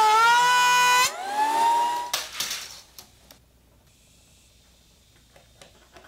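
DeWalt benchtop thickness planer running with a steady high whine that sags slightly under the cut, then stops abruptly about a second in. A short machine whine rises in pitch and cuts off at about two seconds, followed by a few light clicks over a quiet room.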